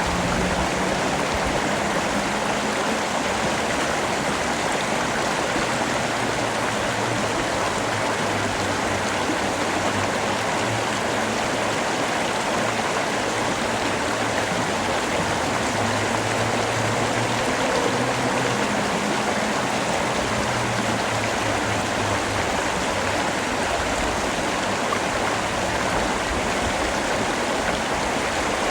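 Steady heavy rain falling, an even rushing hiss with no breaks or thunder.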